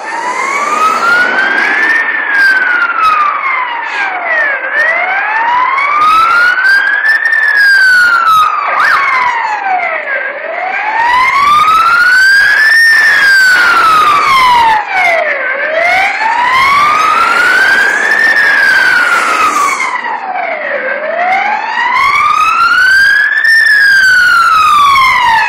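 Fire engine siren wailing: a slow, loud rise and fall in pitch that repeats about every five and a half seconds.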